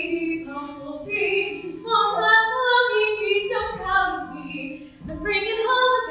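A woman singing unaccompanied, in held notes that slide up and down in pitch, with short breaths between phrases.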